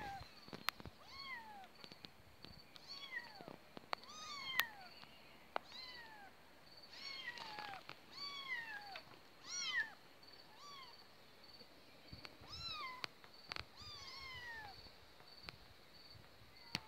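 Kittens mewing: repeated high-pitched mews, about one a second, each a short cry that rises and then falls. A few sharp clicks come between them.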